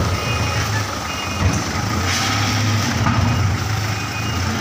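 Heavy vehicle's reversing alarm beeping about once a second over its steadily running diesel engine, with a short hiss about two seconds in.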